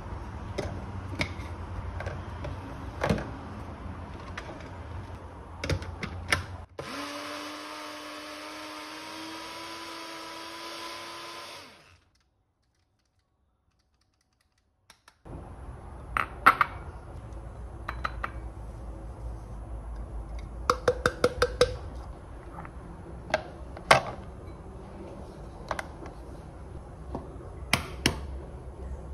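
Small blender motor running steadily for about five seconds, its pitch creeping up as it grinds whole oats into flour, then stopping. Before and after it come clicks, knocks and a quick run of sharp taps from handling the blender cup and glassware.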